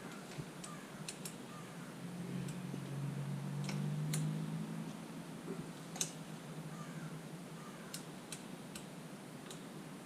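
Scattered light clicks and taps of hand tools and small metal parts being handled while parts are fitted to an e-bike's front end. A low steady hum swells for a few seconds in the middle.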